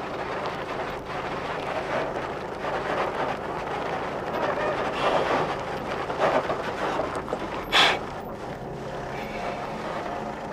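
Ikarus bus's diesel engine running as it drives slowly along a gravel road and approaches, a steady low drone under a rushing noise, with one sharp knock about eight seconds in.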